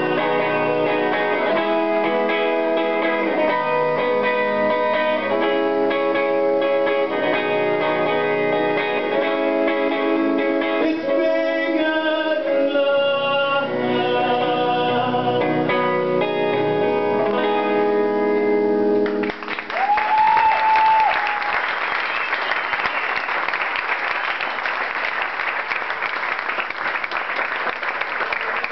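A man sings live to his own semi-hollow electric guitar played through an amplifier. The song ends abruptly about two-thirds of the way through, and the audience breaks into steady applause, with one short call from the crowd just after it starts.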